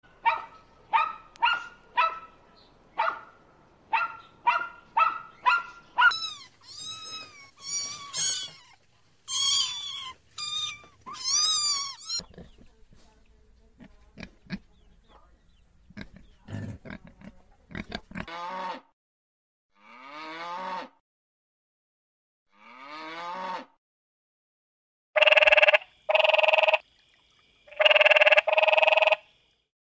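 A string of animal calls: a puppy's quick, repeated high yaps followed by rising-and-falling whines, then pigs grunting and squealing, then four loud, steady croaks from a tree frog near the end.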